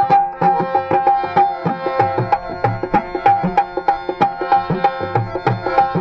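Rajasthani folk music: a hand drum beats a quick, even rhythm, with low thuds that bend in pitch, under a steady melodic line.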